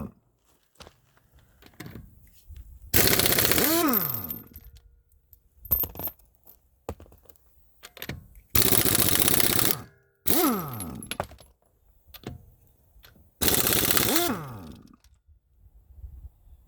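Impact wrench hammering on the front wheel's lug nuts in four bursts of about a second each, its motor winding down with a falling whine after each trigger release, with small knocks and clatter between bursts.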